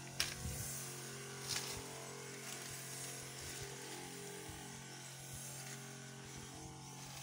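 Backpack herbicide sprayer's pump motor humming steadily as the wand sprays, with a few brushing rustles in the first couple of seconds as he pushes through grass and leaves.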